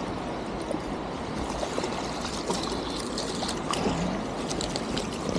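Stream water running steadily, with small splashes and ticks as a small hooked trout is drawn across the surface toward the bank.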